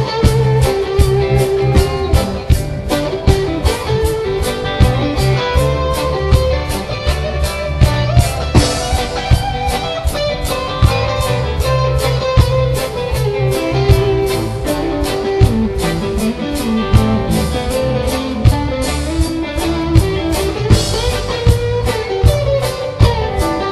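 Live reggae band playing: electric guitars over drum kit and bass, with a steady beat.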